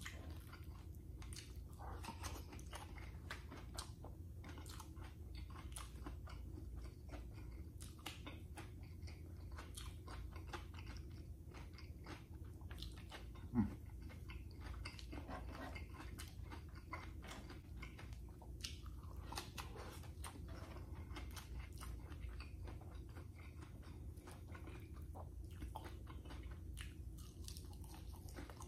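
A person chewing and crunching a mouthful of crispy fried tuyo (dried salted fish) and rice close to the microphone, with many small irregular crunches and mouth clicks over a steady low hum. There is one louder short sound about thirteen and a half seconds in.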